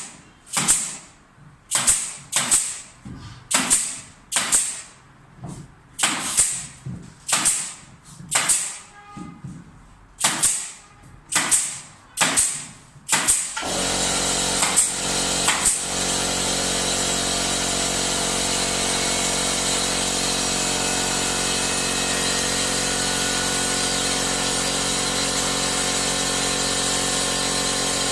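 About a dozen sharp strikes at roughly one or two a second. Then, about halfway through, a power tool starts and runs steadily.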